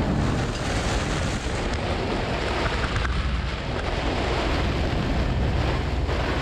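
Storm wind from a microburst blowing hard across a sailboat and buffeting the microphone, a steady heavy rush with rough, whitecapped water around the hull.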